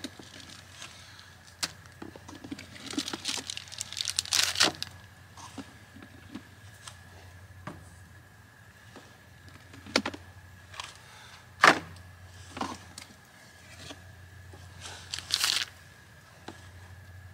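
Plastic food packaging crinkling and rustling as groceries are taken out of a cooler and set on a wooden picnic table, with scattered knocks and clunks of items being put down; the loudest is a sharp knock about two-thirds of the way through.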